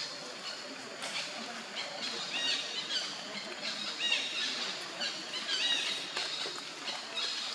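Baby monkey giving a series of short, high-pitched squeals.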